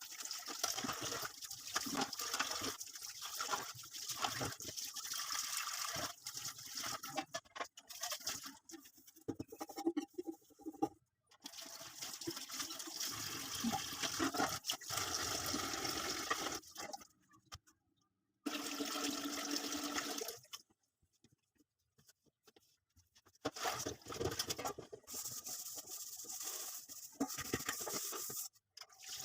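Water running and splashing from a kitchen tap, in several stretches broken by sudden short silences.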